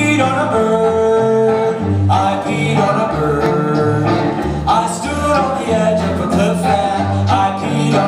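Live band playing: cello, electric guitar, drum kit and fiddle, with voices singing over it.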